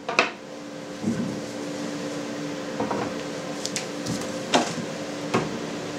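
Black weight plates being set onto the top board of a cheese press, giving a few sharp knocks (one just after the start, more about four and a half and five seconds in), over a steady low hum.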